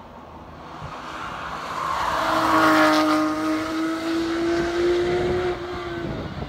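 Porsche 911 GT3's naturally aspirated flat-six going past at speed on a race track: the engine note swells to its loudest about three seconds in, holding a steady high pitch, then drops in pitch as the car pulls away.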